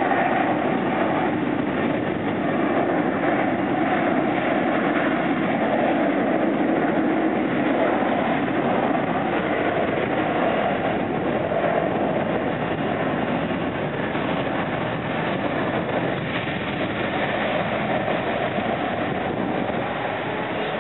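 A JAL Express Boeing 737-800's jet engines at takeoff power during its takeoff roll: a steady, loud rushing noise that eases a little in the second half.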